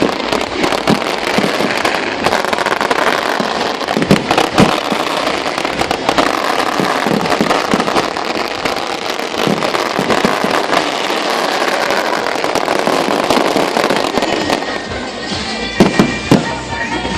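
Aerial fireworks going off in quick succession: a dense, continuous crackle of bursting shells with many sharp bangs, and a few louder single booms near the end.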